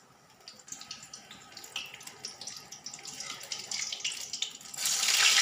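A batter-coated Malabar spinach leaf fritter frying in hot oil in a steel wok: a crackling sizzle with many small pops that slowly grows. Near the end it surges into a loud, dense sizzle as the fritter is turned over with a spatula.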